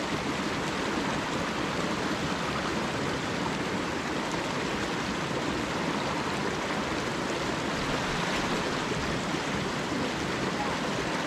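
Small mountain creek running, a steady, even rush of water spilling into a pool.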